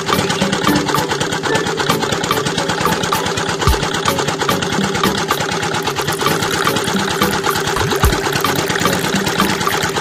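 Small electric motor driving the rollers of a miniature sugarcane crusher, running steadily with a fast, even ticking clatter as stalks are pressed. Two low thumps come about a third of the way in and near the end.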